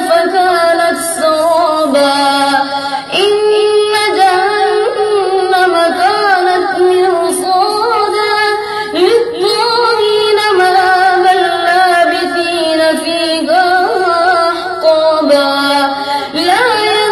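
A boy reciting the Quran aloud in a high, melodic chant, holding long notes with sliding turns and pausing briefly for breath a couple of times.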